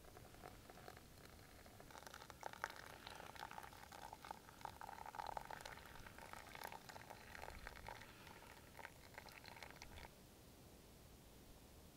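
Faint crackling and bubbling of water heating to the boil for coffee. It builds about two seconds in and cuts off suddenly near the end.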